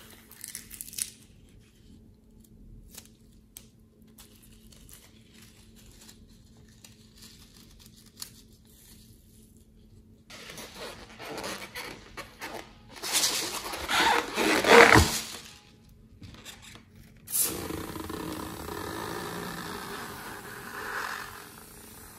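Close-up handling of slime-filled rubber balloons: a few sharp snips near the start, then rubbing, squeezing and squelching of the balloons, loudest about two-thirds of the way through, and a long rasping squish near the end.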